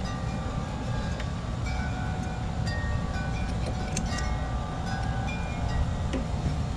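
Light metallic clinks and short ringing tones as the steel blade adapter of a Honda HRX217 mower is wiggled and rotated by hand to work it off the crankshaft, over a low steady rumble.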